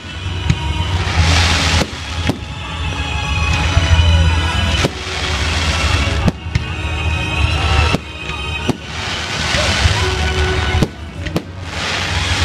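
Fireworks display: aerial shells bursting with sharp bangs every second or two, over a continuous crackle and rumble of smaller effects.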